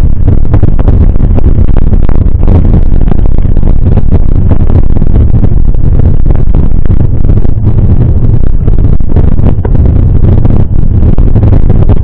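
Loud, steady rumble of wind and road noise on a mounted action camera's microphone as a mountain bike rolls down a wet, rough asphalt road, with frequent clicks and rattles from the bumps.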